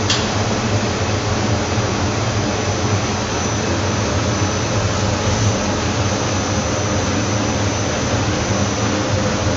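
Bizzozero Mica TC 1600 slitter-scorer running: a steady machine noise with a low hum and a faint high whine, holding even without any change.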